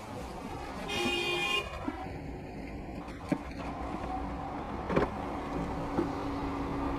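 Traffic and engine noise heard from inside a car held up in a jam, with a short car horn honk about a second in and two sharp knocks later.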